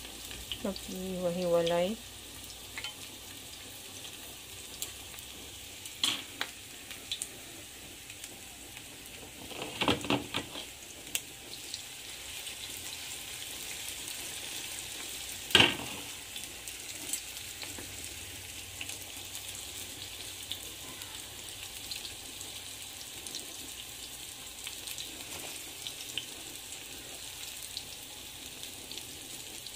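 Corn fritters sizzling steadily in hot oil in a cast-iron skillet. Metal tongs and a spoon click against the pan now and then, with one sharp knock about halfway through.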